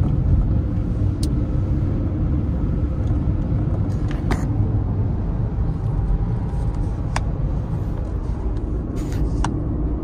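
Steady low road rumble of a car driving at speed, heard inside the cabin, with four short sharp clicks scattered through it.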